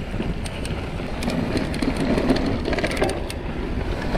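Mountain bike descending a dirt slope: steady tyre and rolling noise with scattered rattling clicks from the bike, a cluster of them about three seconds in.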